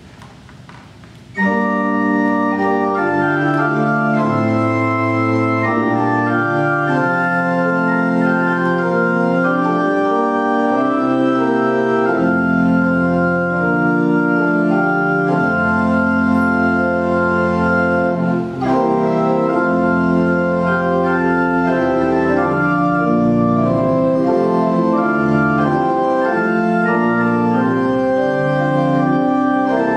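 Church organ postlude following the dismissal: the organ comes in loudly about a second and a half in and plays full, held chords that move from one to the next, with a brief break a little past halfway.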